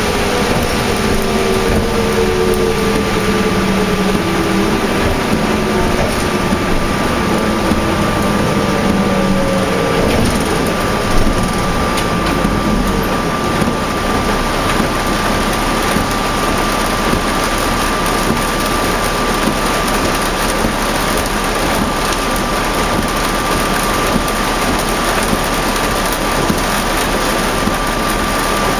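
Inside a New Flyer D40LF diesel transit bus with a Cummins ISL engine and ZF automatic transmission. The engine and driveline whine slides down in pitch over the first ten seconds or so as the bus slows, then gives way to a steady hiss of heavy rain and road noise. A constant high thin whine sounds throughout.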